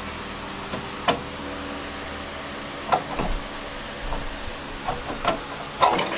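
Scattered sharp knocks and clinks, about four of them, as the sheet-metal patch piece is handled and test-fitted, over a steady background hum.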